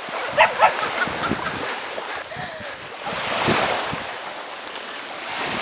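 Small waves washing up on a sandy beach, with a wave swelling and washing in about three seconds in.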